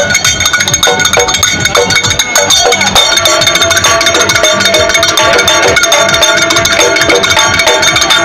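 Karadi majalu folk band: large karadi and sambal drums beating a fast, dense rhythm with ringing hand cymbals, and a shehnai playing a melody that grows fuller about three seconds in.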